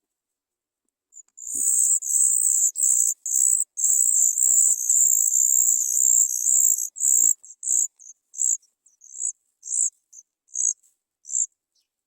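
Sooty chat nestlings begging for food: high-pitched calls in a dense, continuous run from about a second in, thinning after about seven seconds into short separate calls roughly twice a second.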